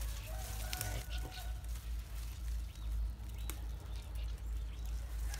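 Leaves and stems rustling as a hand parts low weeds, over a steady low rumble on the microphone. A faint short call is heard about half a second in, and a single click near the middle.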